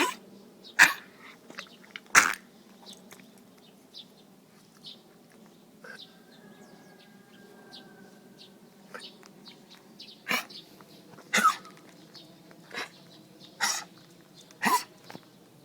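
Schnauzer coughing in harsh, hacking coughs with retching, as if something were caught in its throat. Two loud coughs come about a second and two seconds in, then after a lull a run of five more from about ten seconds on.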